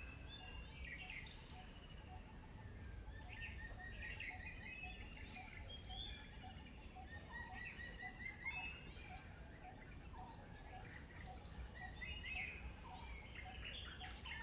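Outdoor birdsong: several birds chirping and calling in short phrases, with a softer lower note repeating about once a second, over a steady low rumble of background noise.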